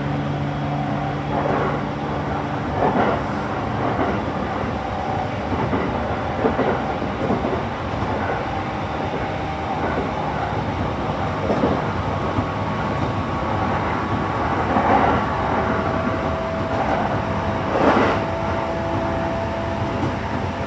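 E231-series commuter electric train running, heard from inside a passenger car: a steady rumble with a few steady motor and inverter tones, and wheels clicking over rail joints.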